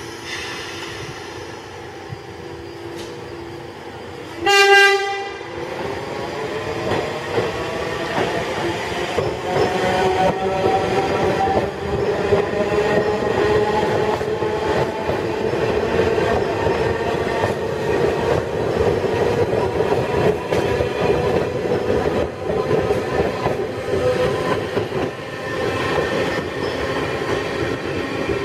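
R46 New York City subway train sounding one short horn blast about four seconds in, then accelerating away, its traction motors whining up in pitch before levelling off. The wheels clack steadily over the rail joints.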